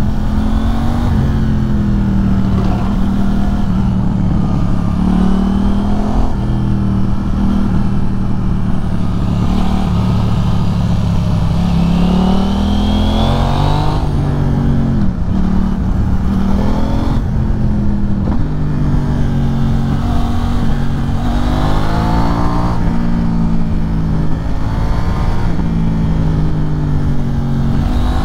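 KTM 790 Duke parallel-twin engine through an Arrow Pro-Race exhaust, heard while riding. The revs climb and drop back again and again as the rider works the throttle through the bends, with sharp drops about halfway through.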